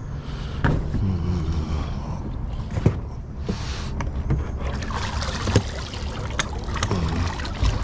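Mercury 15 hp outboard motor being tilted up on its transom bracket: several sharp knocks and clunks from the mount, with water splashing and trickling off the motor's leg as it comes out of the water.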